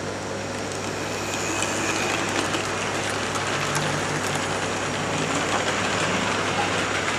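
Hornby OO gauge model Hall class locomotive running on track: a steady whirr of its electric motor and wheels on the rails, with a low hum, growing a little louder over the first two seconds.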